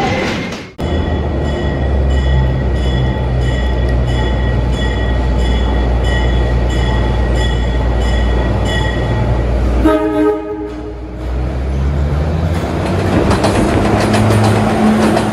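Recorded subway train sounds: a train running steadily with a pulsing low hum, a short horn blast about ten seconds in, then a train pulling away with a rising motor whine and wheels clicking over the rail joints.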